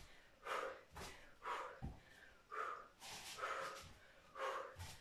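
A woman breathing hard from exertion, in short, forceful exhales about every half second.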